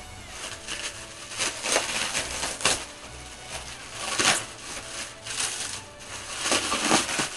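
Black plastic bag wrapping rustling and crinkling as it is pulled and torn off a package by hand, in several irregular bursts.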